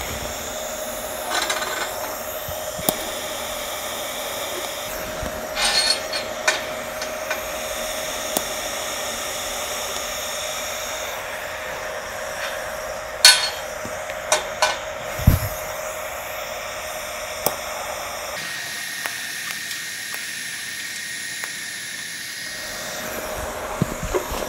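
Stainless steel pipe fittings and tools clinking and knocking now and then as they are handled on a steel bench, over a steady hiss with a faint steady tone.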